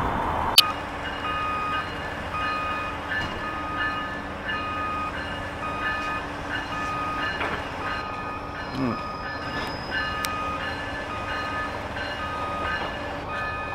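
Commuter train of bilevel coaches moving slowly along the track, with a warning bell dinging steadily in a repeating two-note pattern, about once a second. A sharp click sounds just after the start.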